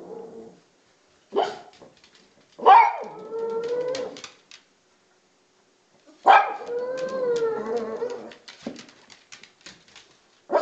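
Pug barking and baying: a short bark, then two sharp barks, each drawn out into a wavering howl lasting a second or two, and one more sharp bark at the end.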